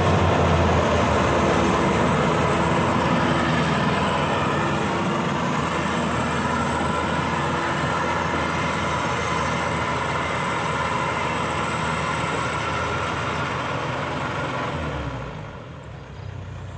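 Rice combine harvester running: a steady, dense mechanical noise of engine and machinery that slowly fades, then drops off sharply about fifteen seconds in.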